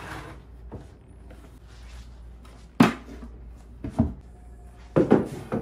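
Wooden knocks and bumps as an oak-framed tabletop is handled and set down: a sharp knock about three seconds in, another a second later, then a few close together near the end.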